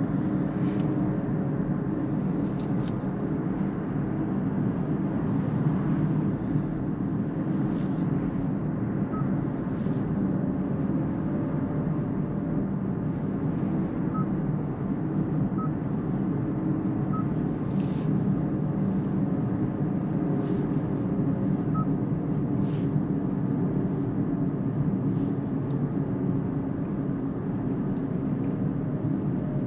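Steady road and tyre noise heard inside the cabin of a Kia EV6 electric car driving on the road, with no engine sound. A few faint short clicks and soft pips are scattered through it.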